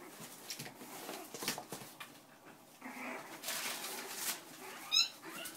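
Boston Terrier puppies whimpering, with one short high squeal near the end, among the scratch and rustle of small paws on blankets and the plastic pool.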